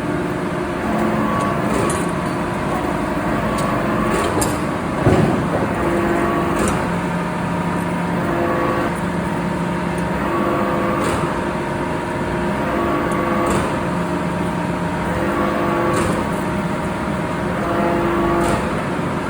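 Steady forging-plant machinery noise, with held tones that come and go about every two and a half seconds and scattered sharp metallic ticks; one louder knock comes about five seconds in.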